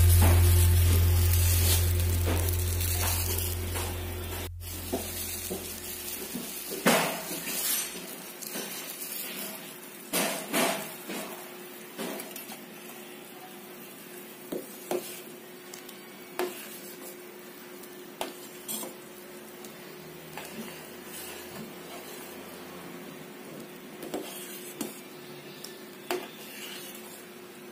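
Soup simmering in a steel pot, with a metal ladle stirring and clinking against the pot every second or two. Music fades out over the first few seconds.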